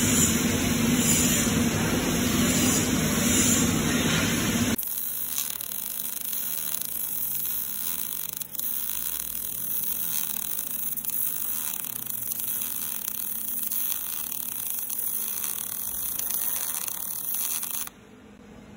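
For the first few seconds a loud, steady whooshing noise, which cuts off abruptly; then a MIG welding arc crackling and hissing steadily as a vertical-up fillet weld is run on steel, with a brief break near the middle. The arc stops abruptly near the end.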